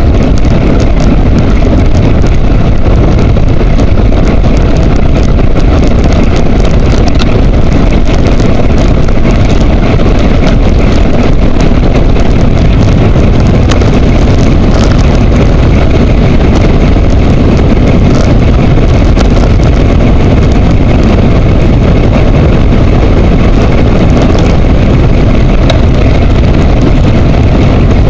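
Loud, steady wind rush buffeting a handlebar-mounted camera's microphone on a road bike riding at speed, mixed with tyre noise on asphalt and scattered small clicks and rattles.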